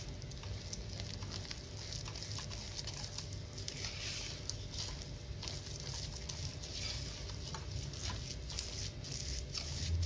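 A silicone spatula working crumbly almond dough in a cut-glass bowl. It makes a continuous scraping, crumbly rustle with many small clicks where the spatula meets the glass.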